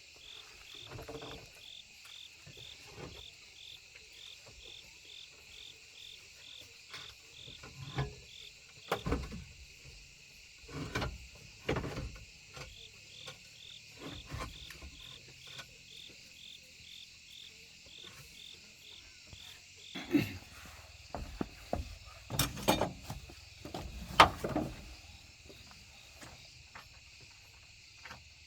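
Crickets chirping steadily, with a pulsed chirp about three times a second through the first half. Scattered sharp knocks and clanks come over it, bunched and loudest about three-quarters of the way in.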